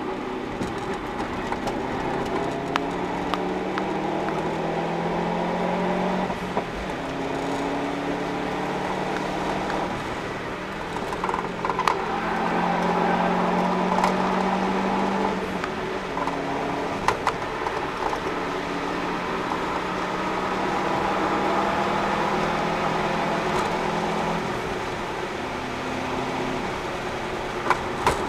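Subaru Impreza WRX's turbocharged flat-four, with an aftermarket Invidia cat-back exhaust, heard from inside the cabin under hard track driving: the engine pitch climbs and drops repeatedly as it pulls through the gears and backs off for corners. A few short sharp knocks are heard along the way.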